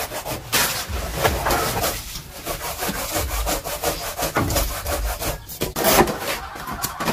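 Rustling banana leaves, then dry split firewood sticks clattering and rubbing against each other as they are pulled from a stacked pile and handled, in a run of irregular knocks and scrapes.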